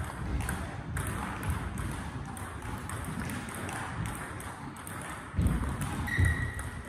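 Celluloid-style table tennis ball clicking off bats and table in a serve and rally, with heavy thumps of footwork about five and a half seconds in and a brief high squeak just after.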